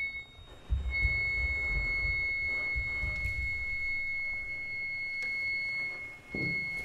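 Contemporary ensemble music with electronics: a steady, pure high tone held for about five seconds over a low rumble. The tone breaks off briefly near the end, then returns.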